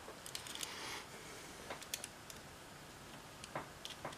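Small metallic clicks and a short scrape near the start as pliers twist the tabs on a tinplate toy car's chassis, with several scattered sharp ticks after.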